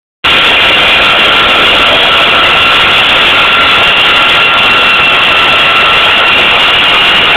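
Flatbed tow truck's winch and hydraulics running steadily with a high, even whine as they pull a car up the tilted bed.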